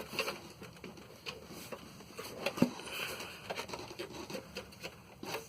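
Scattered light clicks, taps and rattles of hands working on a desktop computer's case and parts during disassembly, with a sharper knock about two and a half seconds in.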